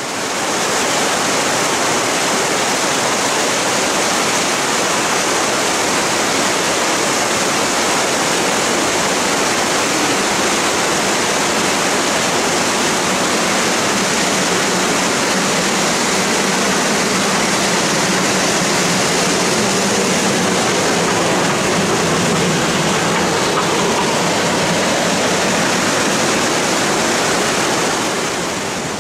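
Rushing mountain river: a loud, steady rush of fast water tumbling over rocks.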